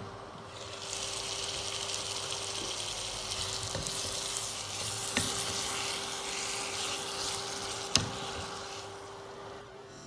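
Chicken pieces sizzling in a hot non-stick pan as they are turned with a wooden spatula, starting about a second in and fading near the end. Two sharp taps of the spatula on the pan, with a steady low hum underneath.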